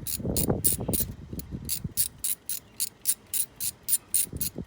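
Ratchet wrench clicking steadily, about four clicks a second, as it turns a spark plug socket on an extension, with low handling noise under the clicks in the first second and a half.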